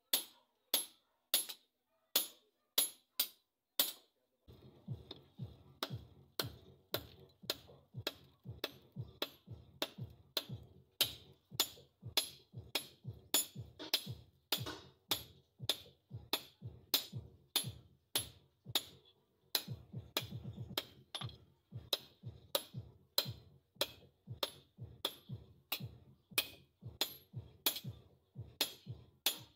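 Hand hammer striking a red-hot steel blade on a small anvil in a steady rhythm of ringing metallic blows, about two a second at first and about three a second after a few seconds. A low rumble sits under the blows from about four seconds in.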